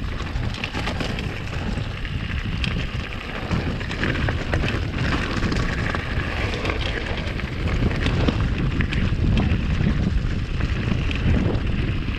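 Mountain bike riding fast down a rocky dirt singletrack: wind on the microphone, tyres on loose stones and dirt, and many quick clicks and rattles from the bike over the bumps.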